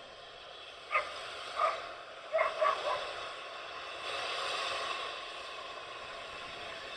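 Narrow-gauge steam locomotive getting under way, with a broad hiss of steam swelling about four seconds in. Before that come five short, sharp barks in quick succession, the loudest sounds.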